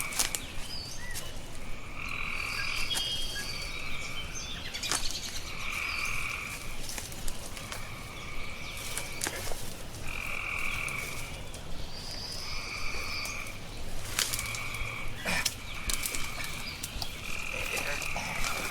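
Frogs calling: repeated calls about a second long, coming roughly every two seconds, with scattered sharp clicks between them.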